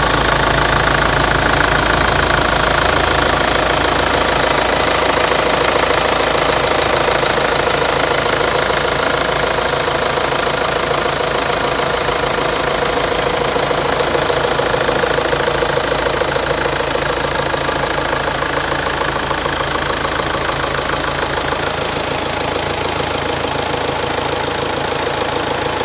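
Kia Sorento's CRDi 16-valve four-cylinder common-rail diesel engine idling steadily.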